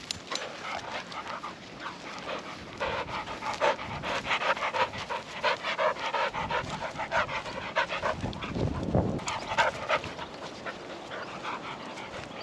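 English springer spaniel panting close to the microphone, in a quick, even rhythm of breaths.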